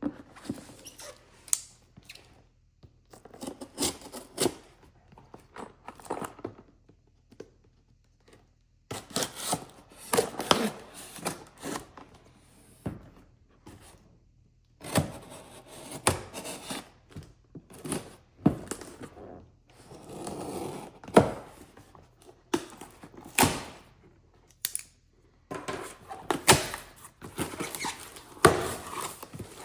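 Irregular knocks, clicks and rustling of packaging and hard parts being handled as a boxed firearm is unpacked, with short pauses between bursts of handling.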